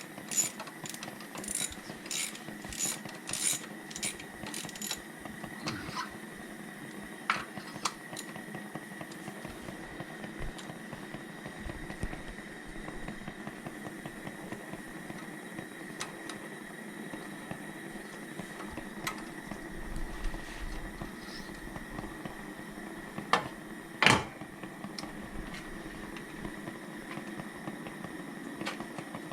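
Ratchet wrench working a stiff spark plug out of the cylinder head in short, even strokes for the first five seconds or so. Then come scattered metal clinks of tools and one loud clank about 24 seconds in, over a faint steady hum.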